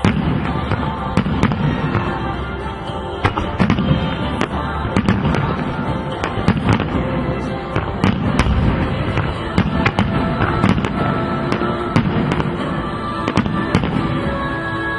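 Aerial firework shells bursting in a rapid series of sharp bangs, several a second at times, over steady background music.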